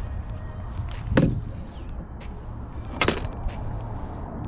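Wind rumbling on the microphone, with two sharp knocks about a second and three seconds in and some faint clicking.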